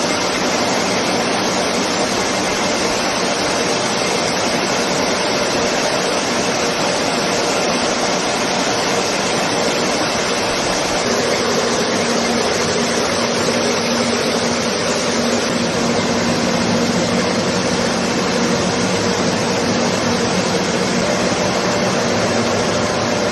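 Buckwheat flour milling plant running: a steady, dense machine noise, with a low hum coming in about halfway.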